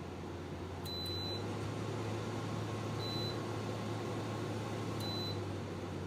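Midea window air conditioner running with a steady low hum and rush of air. Three short, high electronic beeps sound about two seconds apart.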